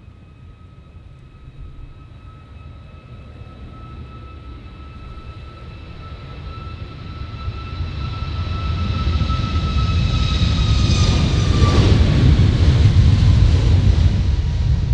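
Boeing 737 MAX's CFM LEAP-1B turbofans at takeoff power as the jet accelerates down the runway and passes close by. A high whine of steady tones over a deep rumble grows louder throughout. The whine dips in pitch as the jet goes past, about twelve seconds in, and the rumble is loudest near the end.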